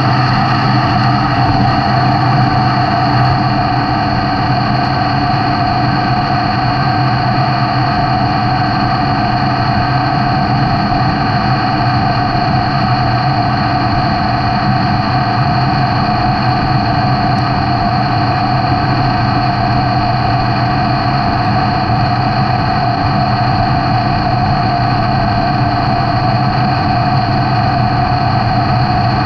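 A machine tool running at a constant speed, its motor and gearing giving a steady whine of several held tones that never changes in speed or pitch.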